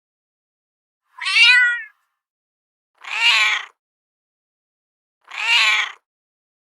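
Cat meowing three times, each meow under a second long with about a second and a half of silence between them.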